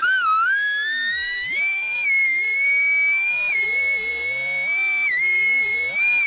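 A high whistling tone that slides up in pitch over the first two seconds, then holds steady with small wavers and a brief dip about five seconds in.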